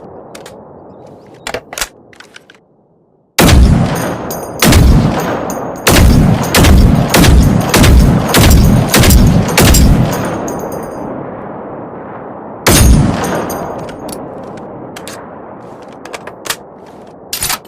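Pansarvärnsgevär 90 .50 calibre rifle firing: a loud shot a few seconds in, a second about a second later, then a quick string of shots about half a second apart. After a pause comes one more shot, with a long rolling echo after each. A few light clicks come before the shooting and near the end.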